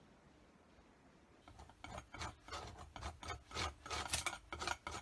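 Hand rubbing firmly over tissue paper laid on a gel printing plate, a run of quick, irregular scratchy rubbing strokes starting about a second and a half in. She presses hard enough to tear the tissue.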